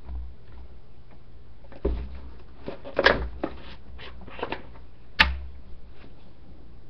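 A handful of separate clicks and knocks from a plastic vegetable-oil bottle and a measuring spoon being handled over a glass mixing bowl, the sharpest about five seconds in.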